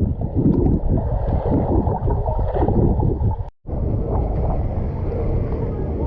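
Wind buffeting the microphone, a loud, steady low rumble that drops out completely for a split second about three and a half seconds in.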